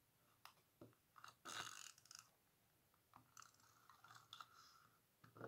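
Faint crackling of a tape runner being drawn along a strip of paper to lay down adhesive, with light clicks and paper handling; the longest crackle comes about a second and a half in.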